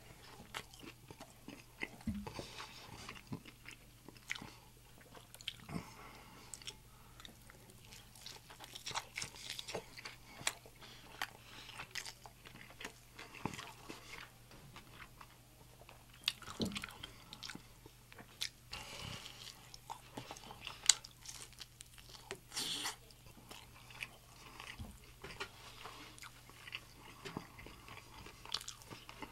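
Close-miked biting and chewing of crisp, griddled birria tacos, with irregular crunches and clicks throughout.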